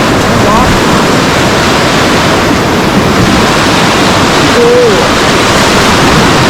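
Loud, steady rush of whitewater from a river rapid around a raft, with brief shouts from the rafters about half a second in and again past the middle.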